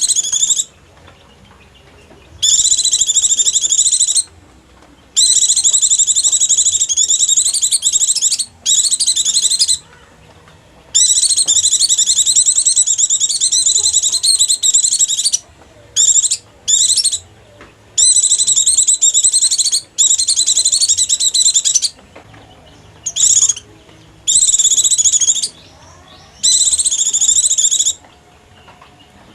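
White-eye (pleci) lure call: a fast, high chattering twitter in repeated bursts of a fraction of a second to about four seconds, with short pauses between.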